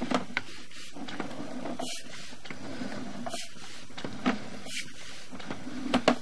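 Sewer inspection camera and its push cable being pulled back through the line: a few light clicks and knocks over a steady hiss, with two sharper knocks near the end.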